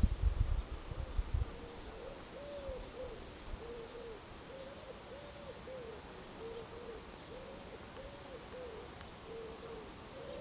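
A bird calling with a long series of short hooting notes, each rising and falling in pitch, coming in twos and threes. A few low thumps on the microphone in the first second and a half.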